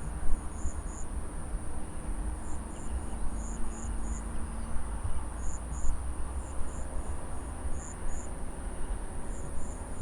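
A chorus of insects in a paddy field: a steady, high-pitched drone, with runs of short, high chirps every few seconds. An uneven low rumble runs underneath.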